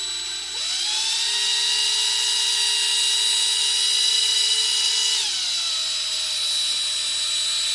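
Small power-tool motor, most likely the pen lathe spinning a sycamore pen blank, running with a steady whine while 400-grit sandpaper rounds over the blank's end. The pitch rises about half a second in and drops lower about five seconds in.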